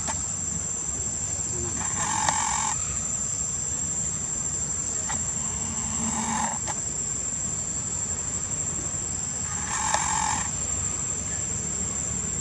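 Steady high-pitched insect drone, over a low background rumble. Three brief louder calls, each under a second long, come about 2, 6 and 10 seconds in.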